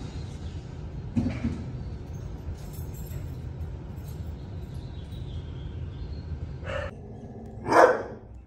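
Dog barking once, short and loud, near the end, over the steady low hum of a shelter's kennel room; a fainter, shorter bark comes about a second in.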